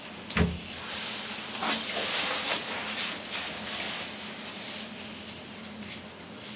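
Hands rustling and rubbing through thick curly hair as it is gathered up, a hissy scratching that comes in short strokes and fades over the last few seconds. A dull thump sounds about half a second in.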